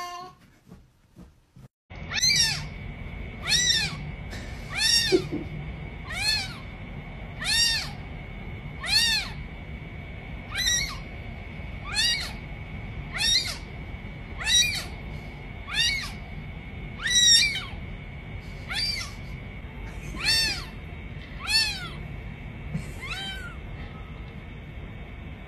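A cat meowing over and over, starting about two seconds in: more than a dozen short high-pitched meows, each rising then falling, one every second and a half or so, over a faint steady high whine.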